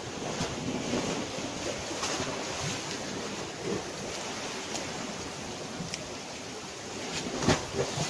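Small waves of a calm sea washing gently on the shore, with some wind on the microphone. A brief louder thump comes near the end.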